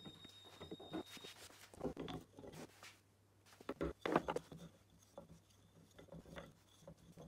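Small padauk wood blocks being set down and nudged into a row on a workbench: scattered light knocks and wood rubbing on wood, loudest about four seconds in.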